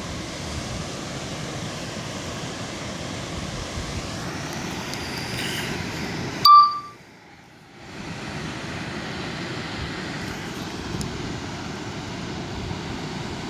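Steady rushing outdoor noise on a phone's microphone. About six and a half seconds in comes one short, high electronic beep, the loudest sound. After it the noise cuts out for about a second, then returns.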